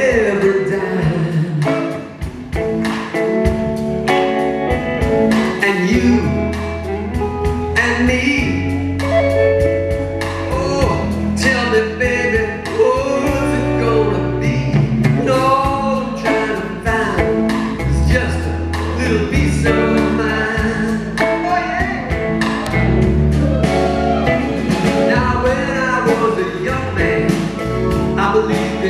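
Live band performing a slow soul-blues song: a male lead singer over electric guitars, bass guitar and drums.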